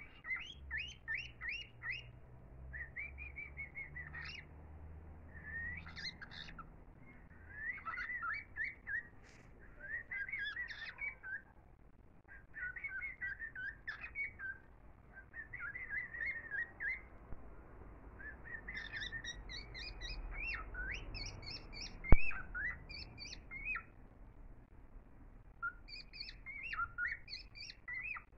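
Small birds chirping and singing in repeated quick phrases of high, sliding notes, with short pauses between phrases, over a faint low rumble. A single sharp click stands out about two-thirds of the way through.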